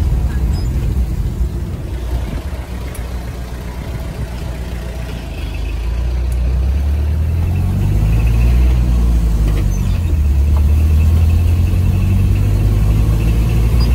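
A vehicle's engine and road noise heard from inside the cabin while driving. About halfway through the engine gets louder and its pitch shifts up and down as it pulls along the road.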